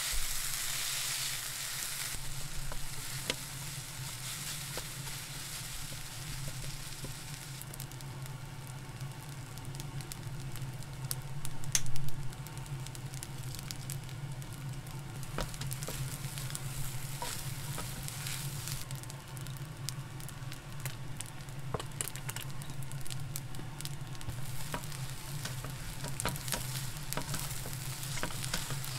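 Food sizzling in a frying pan, with scattered light clicks of a utensil against the pan and a brief louder swell about twelve seconds in. A steady low hum runs underneath.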